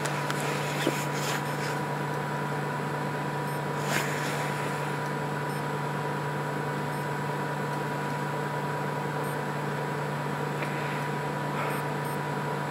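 Steady low hum of a large truck's engine idling, with a thin steady whine above it.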